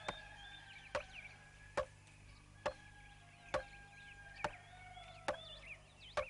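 Regular strokes of a tool striking wood, about one a second, heard faintly, with faint high chirps in the background. At first a held note of background music fades out.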